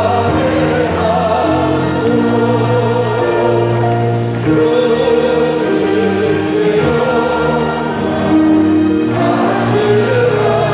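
Many voices singing a slow hymn together over long held accompanying chords, the chords changing every second or two.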